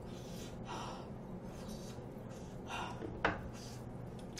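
A person's short breathy huffs and gasps while eating, typical of breathing out through a mouthful of hot food, with one sharp click a little over three seconds in.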